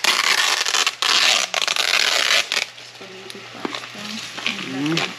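Plastic food tray and its film crinkling and scraping as cold macaroni and cheese is spooned out into a frying pan. The loud rustle lasts about two and a half seconds, with a short break about a second in, then it goes quieter.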